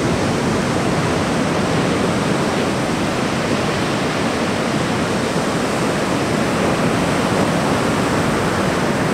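Ocean surf breaking and washing up a sandy beach: a steady, even rush of water.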